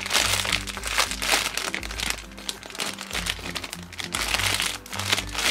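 Clear plastic bag crinkling as hands squeeze the foam squishy sealed inside it, over background music.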